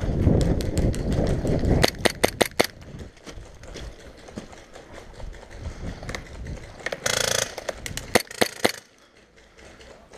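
Airsoft gunfire: a quick string of sharp cracks about two seconds in, scattered single shots, a short rapid burst about seven seconds in, and a few more cracks just after eight seconds. In the first two seconds, heavy rumbling from running movement and wind on a helmet-mounted action-camera microphone.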